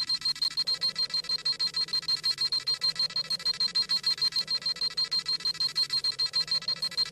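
Scouter sound effect: a fast, even electronic beeping, about seven high beeps a second, repeating without change. It is the sound of the eyepiece scanning a power level.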